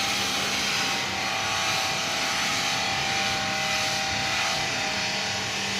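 High-pressure washer running with the gun spraying: a loud steady hiss of water jet over a steady low hum.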